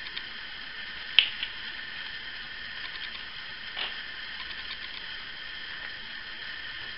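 Small clicks from handling a glass bottle, its screw cap and a plastic pipette: a sharp click about a second in, a softer one just after, and a light knock near four seconds. A steady hiss runs underneath.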